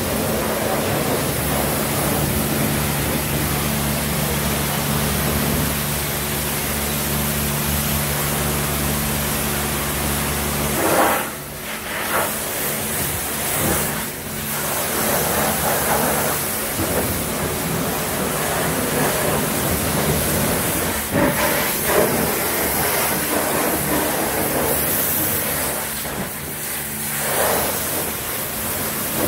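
Car-wash pressure washer spraying, a steady hiss of water. For roughly the first eleven seconds a steady low hum runs underneath it, then stops, leaving an uneven hiss.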